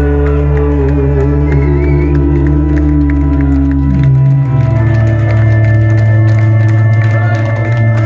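Live band playing droning music on keyboards and synthesizers: long held, wavering tones over a steady bass drone. The bass shifts to a new pitch about halfway through.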